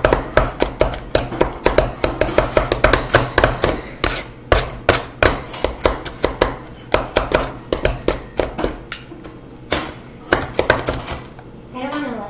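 Metal utensils chopping down on a wooden cutting board through softened ice cream, a rapid run of sharp knocks at about three to four a second that slows and becomes more scattered after about four seconds.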